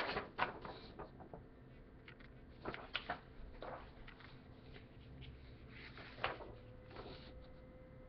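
Corn chips crunching as they are chewed: irregular clusters of sharp crackles, loudest right at the start, around three seconds in, and again just after six seconds.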